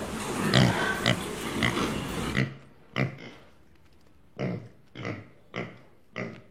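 An animal's short calls, repeated many times at intervals of about half a second to a second. A steady noisy background under them stops suddenly about two and a half seconds in, leaving the calls on their own.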